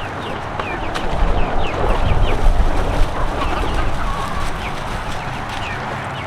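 Backyard chickens clucking, with many short, high chirps scattered throughout over a steady rushing background noise.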